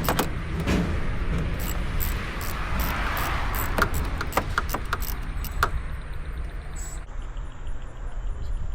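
Scattered metallic clicks of a socket wrench and tools working a bumper bolt loose, over a steady low rumble.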